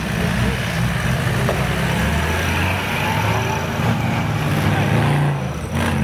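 Engine of a modified Nissan Patrol trial 4x4 running at low revs under load as it crawls up a steep muddy slope, its low note rising and falling as the throttle is worked. The sound dips briefly near the end.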